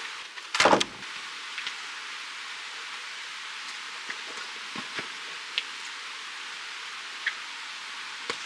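Soccer ball being kicked about on artificial turf: one loud thud about half a second in, then light scattered taps of the ball and footsteps, over a steady hiss.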